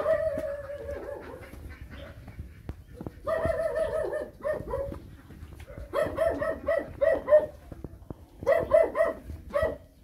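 A dog barking in runs of quick, repeated barks: a longer drawn-out call at the start, then three bouts of barking.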